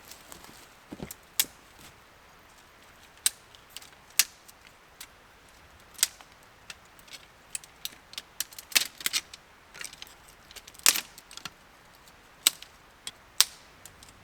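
Scattered sharp clicks and snaps at irregular intervals, with a handful of louder cracks among them.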